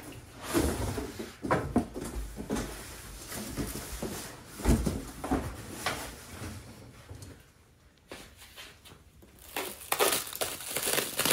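Large cardboard shipping boxes being opened and handled: irregular scraping, flexing and rustling of cardboard with knocks and thuds as the boxes shift, a lull about eight seconds in, then busier rustling near the end.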